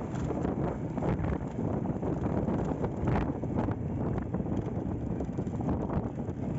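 Wind buffeting the microphone on a moving motorcycle, over the running of a restored Honda Astrea Grand's small four-stroke engine and road noise.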